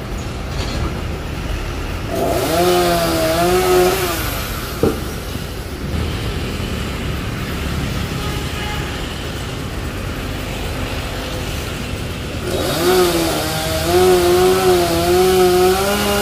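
Chainsaw idling, twice revved to full speed to cut through tree branches: first about two seconds in for two seconds, then from about twelve seconds in for four seconds. The pitch wavers as the chain bites into the wood. A single sharp click comes about five seconds in.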